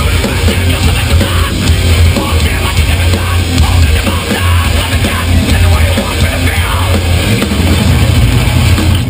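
Live hardcore punk band playing loud, distorted electric guitars, bass and pounding drums, heard through a crowd-level recording that is dense with bass.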